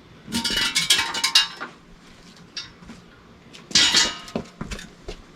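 Metal clanking and rattling in two bouts: a burst of several clanks lasting about a second and a half at the start, then a shorter clank near four seconds in.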